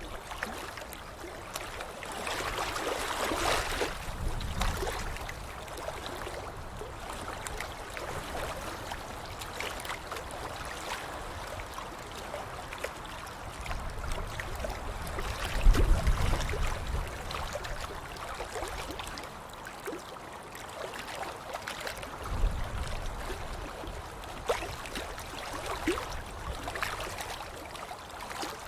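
Water splashing and sloshing throughout. Heavier splashes come a few seconds in, around the middle (the loudest, with a low thump), and again later.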